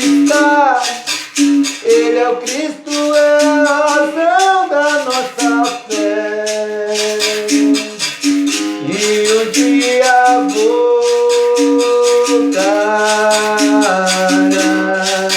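Berimbau with its caxixi rattle shaken in a steady rhythm, under a gliding, held vocal melody of a gospel song.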